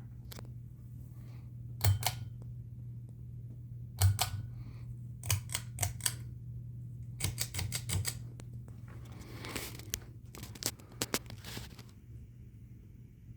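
Kenroy Sahara 52-inch ceiling fan's motor humming steadily, with a series of sharp clicks, some in pairs and some in quick clusters.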